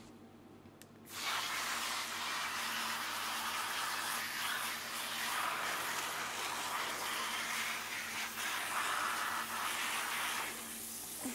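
A garden-hose spray gun jetting water onto muddy horse boots on a rubber mat: a steady hiss of spray that starts about a second in and dips briefly near the end.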